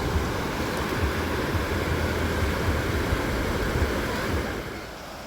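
Wind buffeting the microphone: an irregular low rumble over a steady rushing noise, which dies down near the end.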